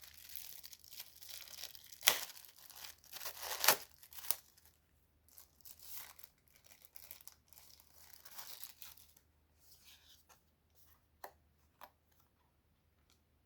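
Paper packaging rustling and crinkling as it is handled and unwrapped, with two sharp crackles about two and three and a half seconds in. The sounds grow softer and sparser over the second half.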